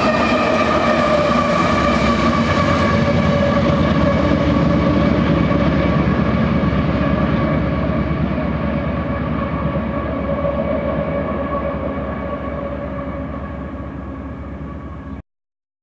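Double-stack intermodal freight train rolling past, the cars rumbling over the rails with a steady high ringing tone above the rumble. It fades as the train draws away from about halfway, then cuts off suddenly near the end.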